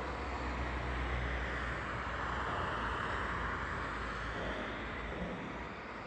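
A rushing roar from the sky over a steady low rumble, swelling around the middle and easing toward the end, like an aircraft passing overhead.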